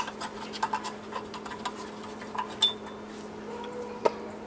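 Light metallic clicks and scrapes of parking-brake shoe hardware (springs, shoes and adjuster) being handled at a rear wheel hub, with a sharp click at the start and another about four seconds in, over a steady low hum.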